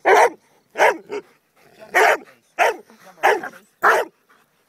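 A dog barking repeatedly in play, seven short sharp barks about two-thirds of a second apart.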